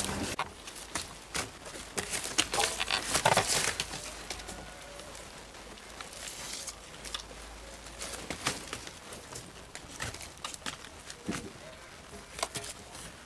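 Young goats eating pumpkin pieces from a metal bowl, with crunching clicks over straw bedding. There is louder rustling of the straw in the first few seconds.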